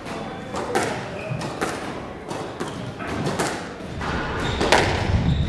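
Squash ball being hit back and forth in a rally: a string of sharp knocks as rackets strike the ball and it smacks off the court walls, one every second or so.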